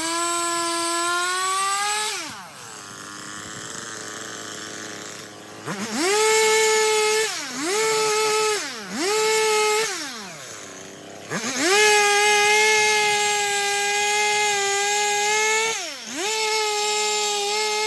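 Stihl two-stroke chainsaw revving in bursts: running at high speed, dropping to idle about two seconds in, two short blips of the throttle, another idle, then a long high-speed run from about two-thirds of the way through with a brief dip near the end.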